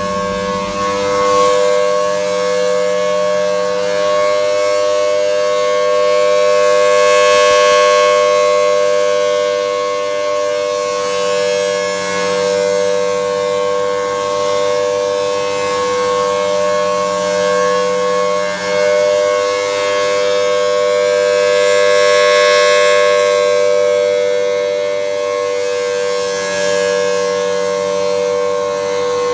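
Federal Signal Thunderbolt 1000T tornado warning siren sounding a steady alert during a siren test: a loud two-note chord held at constant pitch, swelling and fading as the rotating head sweeps past.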